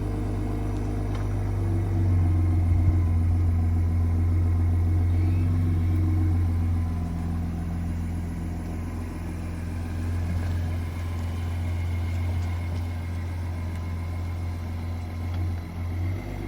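2024 Lincoln Aviator's twin-turbo V6 idling steadily through a newly fitted MBRP axle-back exhaust, with a deep, even exhaust note that gets a little louder about two seconds in.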